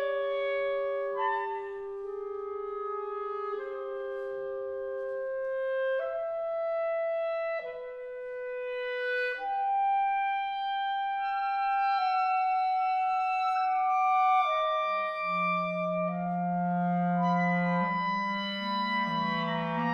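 Clarinet choir of E-flat, B-flat and bass clarinets playing slow, held chords that change every second or two. A deep low part enters about fifteen seconds in and fills out the harmony.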